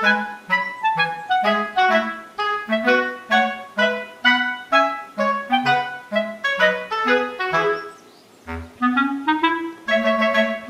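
Light background music: a bouncy tune of short, quick notes. It breaks off briefly about eight seconds in, then picks up again with a rising run.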